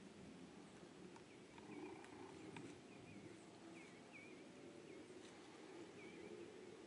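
Near silence with faint, short high chirps from a small animal, repeating irregularly about once a second, and a few faint clicks.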